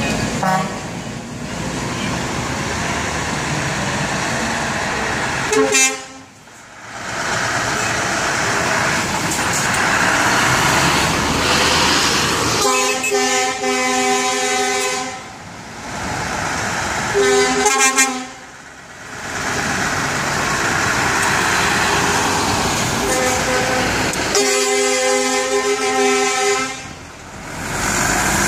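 Truck air horns sounding a chord over the noise of passing trucks' diesel engines: a brief toot, then two long blasts of two to three seconds each, with a shorter blast between them.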